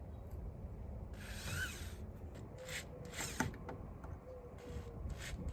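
Several short scraping, rasping sounds from a concrete anchor screw being worked into a pre-drilled hole in brick while a house letter is hung.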